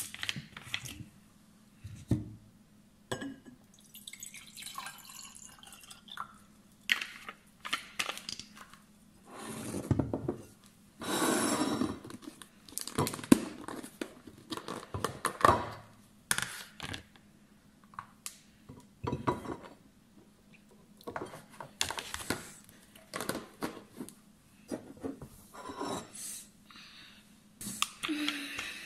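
Breakfast things handled on a table: a plastic water bottle's cap twisted open, water poured into a glass for about a second, and a plastic food container opened over a plate. Scattered knocks and clinks of glass and plate set down on the tabletop.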